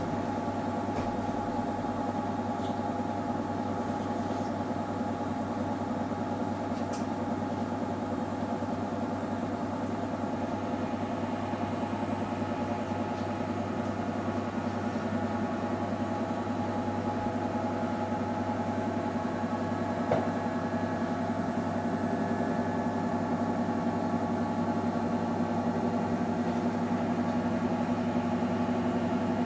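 Samsung Eco Bubble washing machine running early in a cotton wash cycle: a steady motor hum with a single short click about twenty seconds in.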